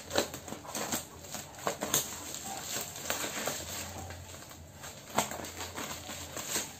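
Scissors cutting through a bubble-wrap parcel, with the plastic wrapping crinkling as it is handled and irregular sharp snaps and clicks.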